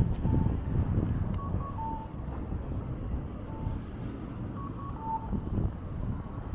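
Short electronic beeps in a two-note pattern, one or two higher notes then a lower, longer one, repeating every second or two over a steady low rumble of traffic.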